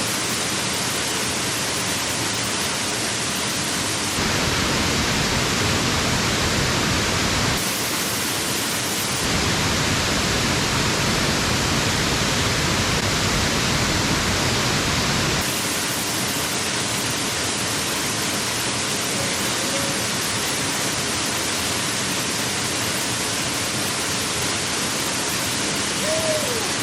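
Waterfalls pouring heavily, swollen by recent rain: a steady, dense rush of falling water. The sound steps abruptly louder or quieter a few times, about 4, 8, 9 and 15 seconds in.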